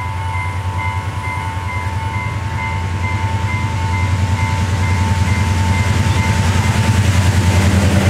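Double-headed diesel locomotives approaching a level crossing, their engine drone growing steadily louder as they near. A pulsing warning tone from the crossing sounds over it and stops shortly before the first locomotive reaches the road.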